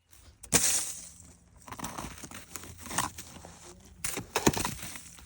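Irregular crunching of footsteps on icy, crusted snow.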